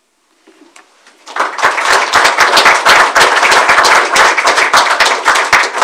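Audience applauding, starting about a second in and keeping up steadily to the end.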